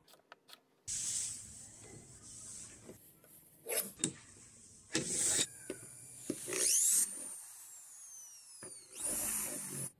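Steel bench vise being worked: clicks and scraping as the screw handle is turned and a steel plate is set and clamped between the jaws. Then a drill bit runs against the clamped steel plate, with high whining tones sliding down in pitch over the last few seconds.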